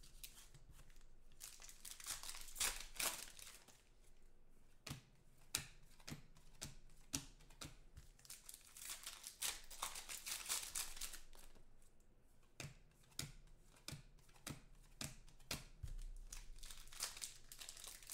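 Foil trading-card pack wrappers being torn open and crinkled by hand: irregular crackling and rustling, with the odd sharper rip.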